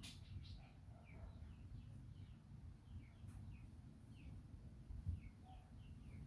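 Faint chirping of small birds, short high notes sliding downward a few times a second, over a low background rumble. A soft thump about five seconds in.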